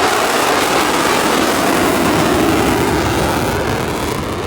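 Aircraft engine noise from a plane at an air show: a loud, steady rumble that eases slightly near the end.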